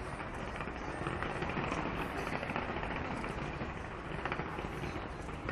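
Fireworks going off continuously, a dense, steady crackle of many small bursts with no single standout bang.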